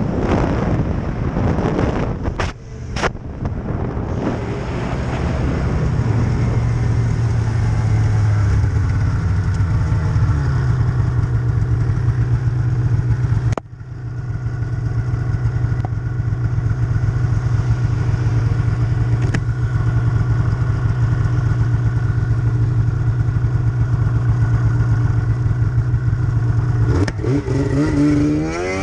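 Snowmobile engine running at a steady cruising speed, a constant low drone, with wind buffeting the microphone in the first few seconds. The sound drops out briefly about halfway, then the same steady drone carries on.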